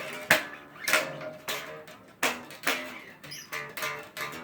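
Single notes plucked one at a time on a bass guitar, roughly two a second, each with a sharp attack that rings and dies away.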